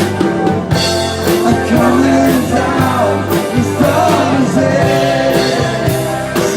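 A rock song playing, with a sung vocal line over guitar, bass and a steady drum beat.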